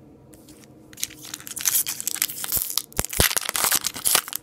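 Foil-wrapped trading-card pack crinkling and tearing as it is opened by hand: a dense run of crackles and crisp clicks starting about a second in.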